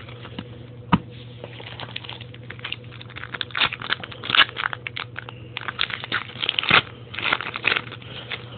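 A foil trading-card pack being torn open and its wrapper crinkled: a run of crackling rips that grows busier after about two and a half seconds, with one sharp knock about a second in.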